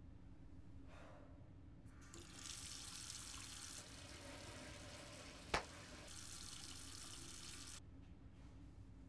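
Tap water running into a sink for several seconds, stopping abruptly near the end, with a single sharp click partway through.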